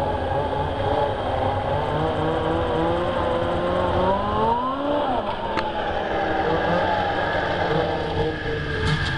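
Snowmobile engine running under throttle. Its pitch rises for a second or so about halfway through, then drops back and holds steady.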